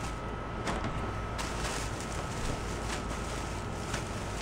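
Thin plastic garbage bag rustling and crinkling as clothes are handled inside it, louder from about a second and a half in, over a steady background hum with a faint high whine.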